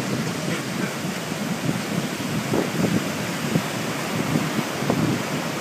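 Wind buffeting the microphone in irregular gusts over the steady wash of surf breaking and running up a sandy beach.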